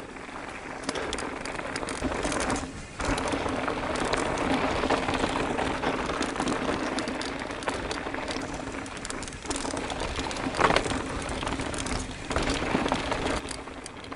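Mountain bike rolling downhill on a dirt trail: tyre noise and chassis rattle, with a steady fast-ticking buzz like a freehub while coasting.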